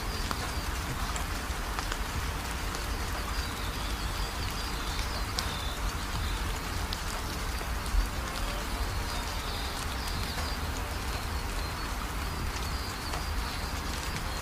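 A steady hiss of outdoor background noise with faint, wavering high-pitched chirps coming and going, and one sharp click about eight seconds in.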